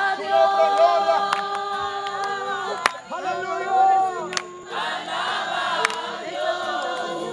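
A group of people singing together in chorus, several voices holding long notes, with a few sharp clicks about every second and a half.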